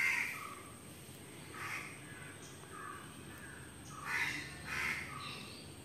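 Crows cawing outdoors: a few short, harsh calls spread apart, with two close together about four seconds in.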